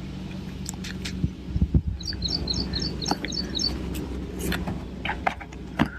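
A bird chirping in a quick run of about eight short, high calls, about two seconds in, over steady background noise, with a few sharp knocks.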